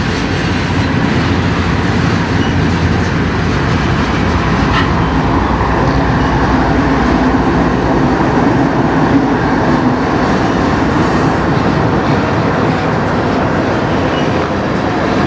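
CN freight train rolling past close by, a loud, steady rush of wheel and rail noise from the passing cars.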